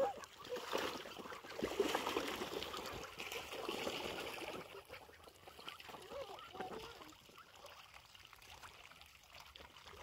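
Water running and splashing in a shallow channel as domestic ducks swim and dabble, with a few short duck calls. The splashing eases off in the second half.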